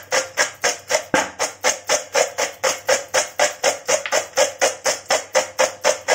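Background music with a steady, quick percussive beat, about three to four light strokes a second.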